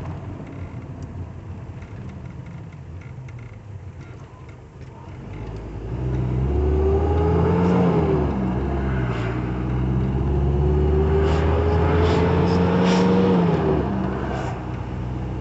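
Motorhome's diesel engine pulling up through the gears: a low steady road rumble for about five seconds, then the engine gets louder and its note climbs, drops at a gear change about eight seconds in, climbs again for about three seconds and drops at the next shift near the end.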